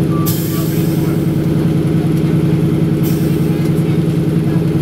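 An Antonov An-2's nine-cylinder Shvetsov ASh-62IR radial engine running steadily while the biplane taxis, heard from inside the cabin. Two short hisses of air from the pneumatic brakes come about half a second in and about three seconds in.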